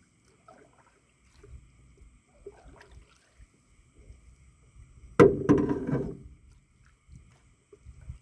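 Canoe paddles dipping and pulling through lake water in soft, uneven strokes. About five seconds in there is one sharp knock that rings on for about a second.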